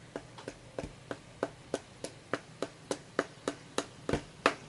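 Steady, evenly spaced ticking, about three ticks a second, over a faint hiss.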